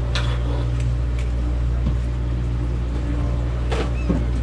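Steady low hum of a party fishing boat's engine, with a few short clicks and knocks from the deck.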